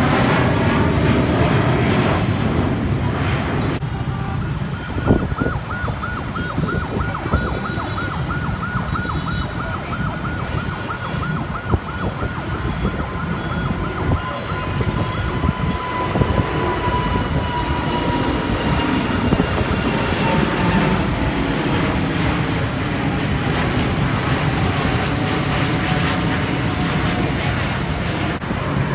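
A jet airliner's engines roaring as it passes low overhead, cut off abruptly a few seconds in. Then comes a steady din of traffic and jet noise, with a fast, evenly repeating warbling tone for about ten seconds and a high whine slowly falling in pitch.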